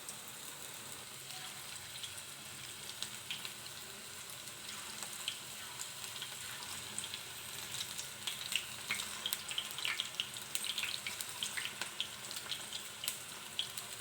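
Gram-flour batter pakodas frying in hot oil, a steady sizzle with sharp crackling pops that grow busier and louder about halfway through.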